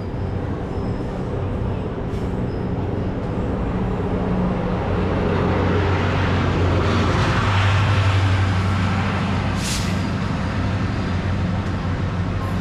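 GO Transit train's diesel locomotive pulling out of the station, its engine drone building to its loudest about eight seconds in. A surge of hiss comes with the peak, followed by a short, sharp hiss of air.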